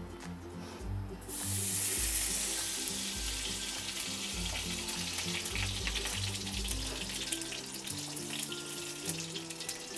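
Ghee sizzling as it melts in a hot kadhai: the hiss starts suddenly about a second in and slowly dies down. Background music plays throughout.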